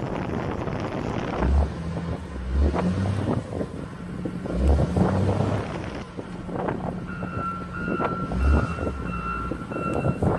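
Wind buffeting the microphone over the sound of street traffic in a snowstorm, with a vehicle's reversing beeper starting about seven seconds in and beeping steadily.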